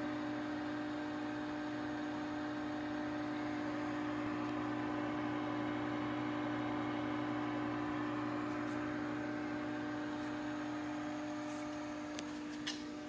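Steady electrical hum and fan whir from a powered Haas CNC control cabinet. It fades a little near the end, where a few light clicks are heard.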